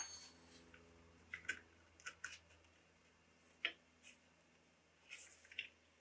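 Scattered faint light clicks and taps: small metal parts being handled as a pin and internal parts are taken out of the Ingersoll Rand 2190Ti impact wrench's housing by hand.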